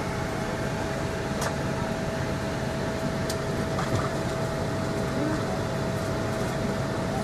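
Steady whoosh and hum of a Boeing 777-300's cabin air-conditioning with a constant tone, heard in the cabin while the airliner sits at the stand before departure; a couple of faint ticks are heard.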